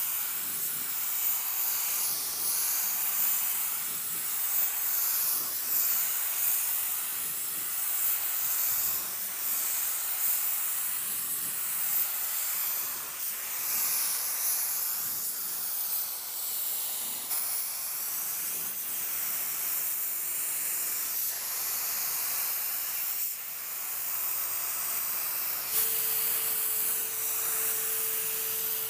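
Gravity-feed spray gun hissing steadily as compressed air atomises clear coat during spray passes. A faint steady hum joins in near the end.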